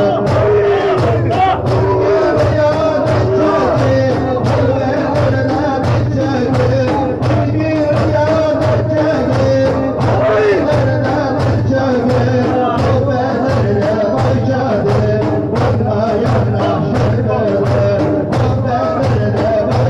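Turkish Sufi ilahi with zikr: male voices singing a devotional hymn over a steady, repeating low rhythmic pulse and percussion.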